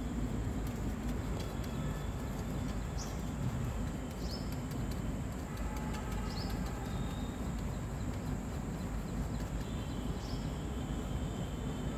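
Steady low background rumble, with about five short, high chirps scattered through it.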